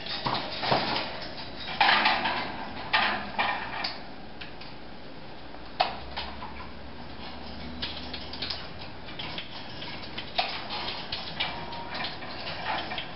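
Scattered light clicks and taps with a few short rustling noises, loudest about two and three seconds in.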